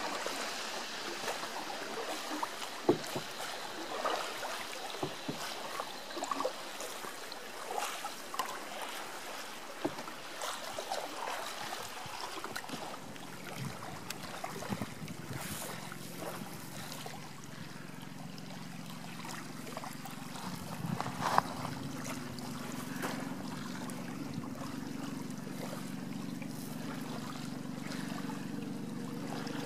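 Small waves lapping against a pebbly lakeshore, with many little splashes and a few sharper ticks. About halfway through, a steady low hum comes in and holds under the water sound.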